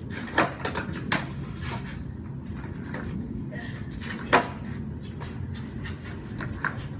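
Skateboards knocking on a concrete driveway: a few sharp wooden clacks as a board is dropped and stepped on, the loudest about four seconds in, over a low steady rumble.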